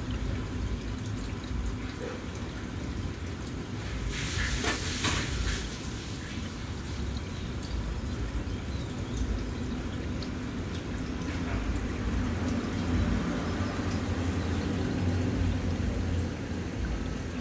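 Aquarium filter pump running with a steady trickling, bubbling water noise, and a brief louder burst of noise about five seconds in.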